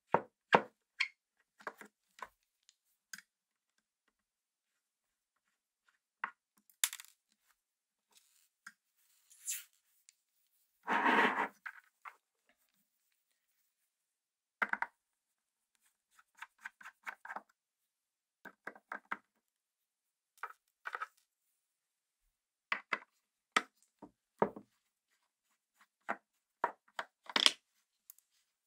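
Small screwdriver working the top-cover screws of a Pentax ME Super camera: scattered light clicks, taps and short scrapes of metal on metal, with silent gaps between, and one longer scraping rub about eleven seconds in.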